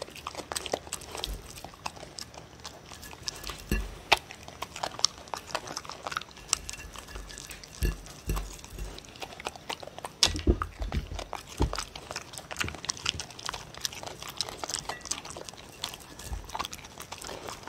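Dogs eating red paprika off a ceramic plate close to the microphone: licking, chewing and biting, with irregular sharp clicks of teeth and tongue against the plate and a few louder knocks. A second dog takes over the plate near the end.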